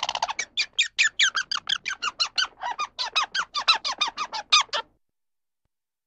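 Squirrel calling: a rapid series of sharp, squeaky chirps, about five a second, each falling in pitch. The calls stop abruptly about five seconds in.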